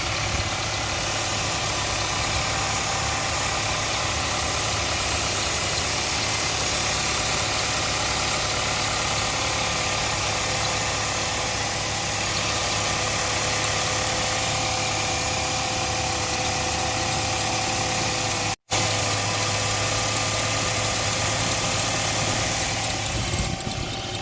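Audi A4 1.8 TFSI turbocharged four-cylinder petrol engine idling steadily while still cold, with no squeal. The sound drops out for an instant about three quarters of the way through.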